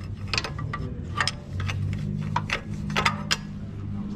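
Hand ratchet wrench clicking in short, irregular runs of sharp clicks as an engine mount bolt is worked, over a steady low hum.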